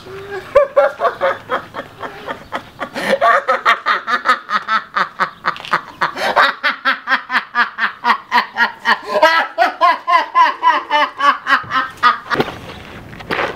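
People laughing in a long run of rapid, rhythmic 'ha-ha' pulses that stops about twelve seconds in. A brief sharp noise follows just before the end.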